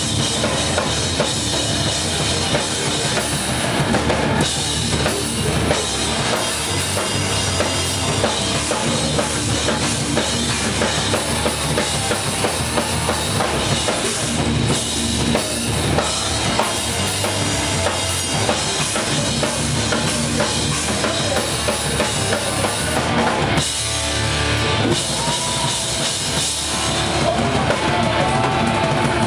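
Live metalcore band playing loud: drum kit with a driving bass drum and snare under distorted electric guitars and bass. About three quarters of the way through, the low end drops away for a moment and a guitar line with bending notes comes to the fore.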